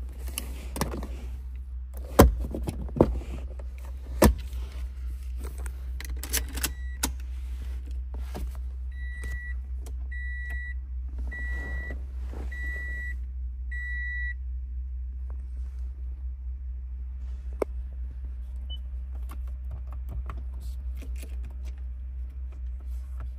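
Handling knocks and clicks, with keys clattering, in a 2016 Toyota RAV4's cabin. These are followed by the car's warning chime beeping five times, about a second apart. A steady low hum runs underneath.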